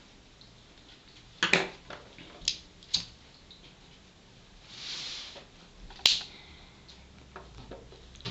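Tobacco pipe being lit and puffed: several sharp clicks and pops of lips on the stem, a soft breathy hiss about five seconds in, then another sharp click about a second later.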